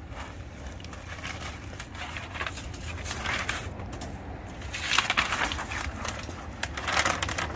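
Paper transfer tape being peeled off a vinyl door decal and crumpled, a crinkling and rustling that comes in spurts, loudest about five and seven seconds in.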